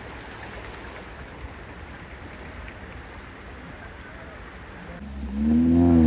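Steady rush of river water. About five seconds in, a Maruti Suzuki Gypsy 4x4's engine comes in loud and revs up and down as it drives through.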